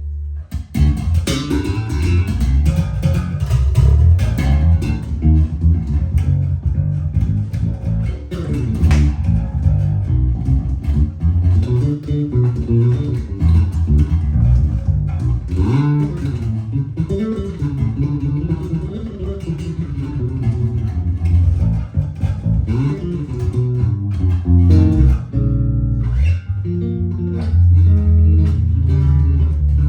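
Fodera Emperor II Elite electric bass played continuously in busy fingerstyle lines, its tone shifting as the pickup pan control is swept from one pickup to the other.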